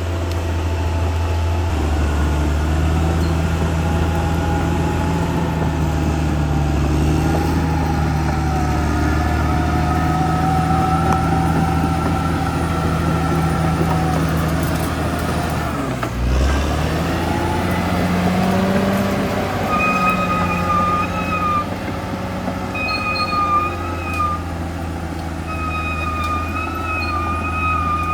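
CAT D6R crawler bulldozer working: its diesel engine runs steadily under load, with a brief dip in the engine note about halfway through. In the second half a wavering high-pitched squeal from the machine comes and goes several times.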